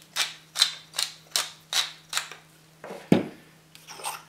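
Wooden hand-twisted seasoning mill grinding over the meat in quick, even twists, about six strokes at roughly two and a half a second, then stopping. A single thump follows about three seconds in, and a faint scrape near the end.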